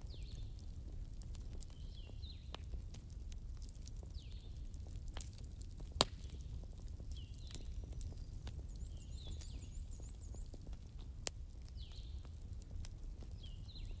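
Fire burning with a low steady rumble and a few sharp crackling pops, the loudest about six seconds in and another near eleven seconds. Short falling chirps from small animals recur every few seconds in the background.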